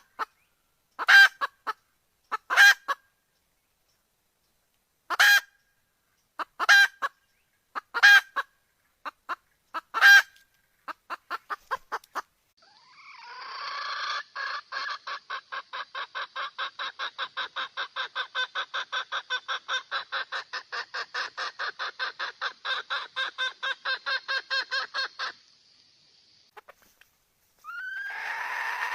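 Female red junglefowl (hen) calling to a rooster: a series of loud clucking calls spaced a second or so apart, then a long, fast, even run of short clucks, about four a second, that stops abruptly, with a brief pause before the calling starts again near the end.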